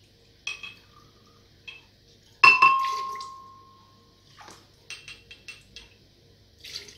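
A small glass measuring cup clinking against a glass blender jar while pisco is poured. A single loud, ringing clink comes about two and a half seconds in, with lighter clicks before it and a quick run of small taps near the end.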